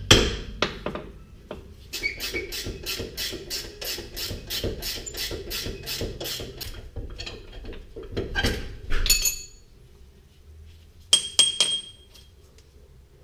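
A hammer knocks on the rear shock absorber's lower bolt, then a ratchet wrench clicks rapidly and evenly, about four clicks a second, for several seconds. Near the end there are a couple of clatters and bright metallic clinks that ring briefly as metal tools are handled.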